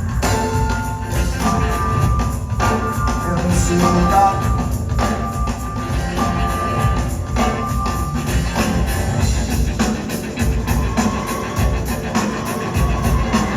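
Live rock band playing an instrumental passage: a steady beat with tambourine-like rhythm and a full low end, under high held tones that drop out about two-thirds of the way through.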